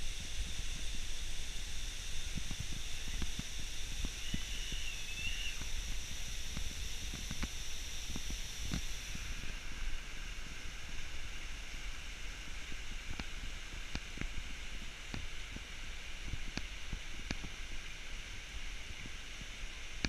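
Rushing hiss of a small waterfall with wind rumbling on the microphone. A short wavering high call comes about four seconds in. The rush drops suddenly about halfway through, leaving the wind rumble and scattered faint clicks.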